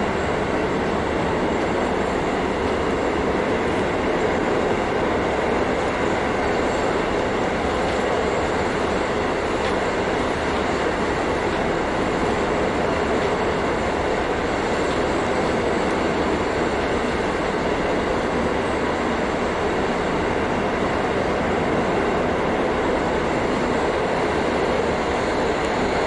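JR KiHa 40 diesel railcar running at a steady pace, heard inside the car: the N-DMF13HZI diesel engine's drone mixed with wheel-and-rail rumble.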